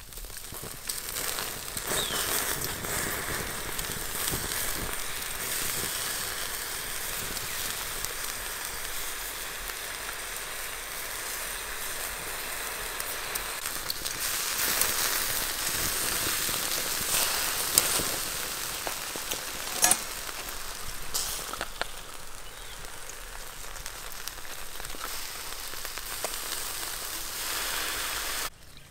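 Beef sizzling as it cooks over a fire: a steady hiss full of small crackles, with a few sharp pops. It stops abruptly near the end.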